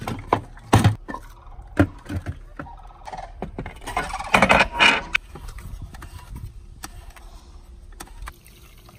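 Plastic knocks and scraping as a pleated cartridge element is set into a pool filter tank and the plastic lid is fitted and fastened. There are several sharp knocks in the first two seconds and a louder scraping clatter about four seconds in, then quieter handling.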